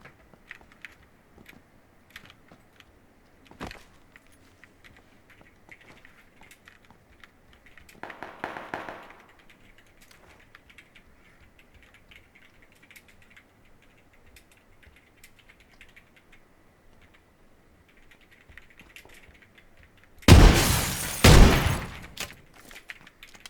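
Two loud sharp bangs about a second apart near the end, each trailing off briefly, after light scattered clicks and rustling.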